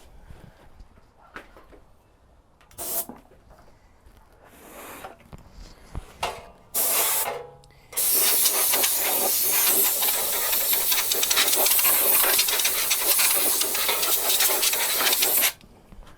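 Pressurised spray hissing: a few short bursts, then one long, even spray of about seven seconds that cuts off suddenly.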